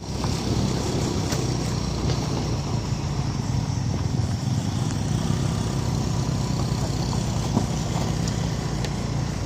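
A motor vehicle's engine running steadily while on the move, heard from on board, with a few light knocks.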